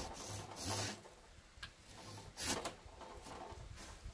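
Gloved hand brushing sawdust off the freshly sawn, flat top of a wooden post: a few short rubbing, scraping strokes on the cut wood, the sharpest about two and a half seconds in.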